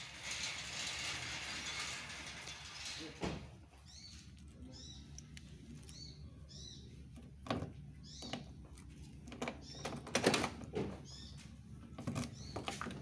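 BMW 323i E36's M52 inline-six idling steadily while warming up. A hissing rush fills the first three seconds, and several sharp knocks or clicks come through, the loudest about ten seconds in, over short high chirps.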